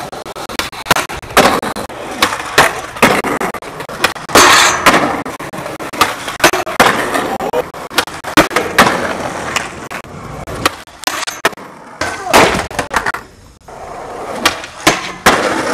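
Skateboard wheels rolling on concrete, broken by many sharp, irregular clacks and slaps of the board popping and landing.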